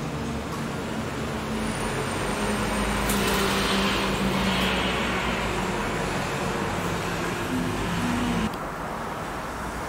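Road traffic: a motor vehicle's engine running, swelling to its loudest about three to five seconds in, then dropping away abruptly about eight and a half seconds in.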